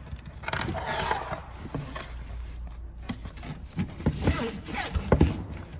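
Nylon webbing strap rustling and scraping as it is pulled through a slot in a metal scuba backplate, with a few light knocks and clicks in the second half.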